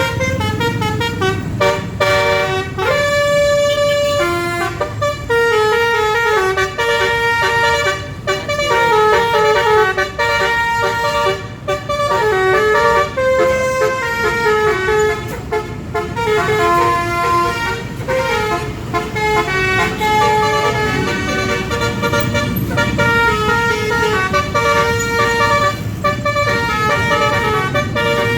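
A tour bus's multi-tone 'telolet basuri' musical air horn playing a tune: several horn notes sound together and step from pitch to pitch almost without a break, with a short lull around the middle. Road and engine rumble runs underneath.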